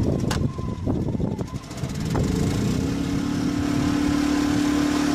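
Small portable gasoline generator being started cold on choke: about two seconds of knocking and clatter, then the engine catches, rises, and settles into a steady, even run.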